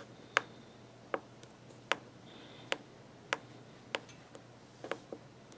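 Short sharp clicks, about eight of them at uneven intervals of half a second to a second, typical of keypad buttons being pressed on an ultrasonic thickness gauge while its velocity setting is nudged to fine-tune the half-inch calibration reading.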